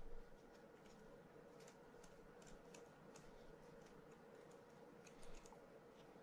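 Faint, irregular light clicks and taps of small metal parts being handled and fitted against a fishing reel's side plate during clicker assembly.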